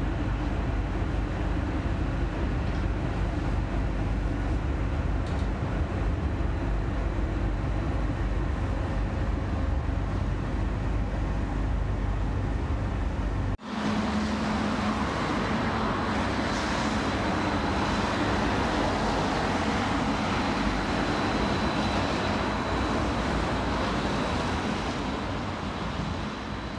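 Variobahn light-rail tram running, heard from inside the car as a steady low rumble. After a sudden cut about halfway through, a tram is heard beside the platform: a steady mixed noise with a thin, steady high whine, easing slightly near the end.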